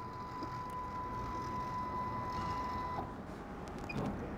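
CNC boring machine's Z-axis drive whining steadily as it lowers the spindle to set the height, stopping about three seconds in. Near the end come two short electronic beeps from the touchscreen controller.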